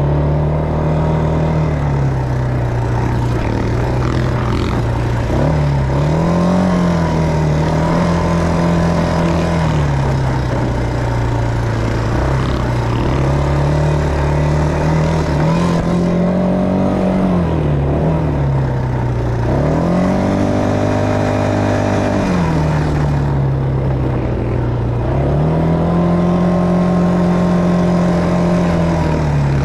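ATV engine running beneath the rider while riding a dirt trail, its revs rising and settling back several times with the throttle.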